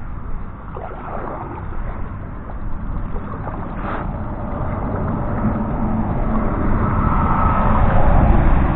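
Kayak being paddled, with paddle strokes and water against the hull, under a low rumbling noise that swells toward the end. A short knock comes about four seconds in.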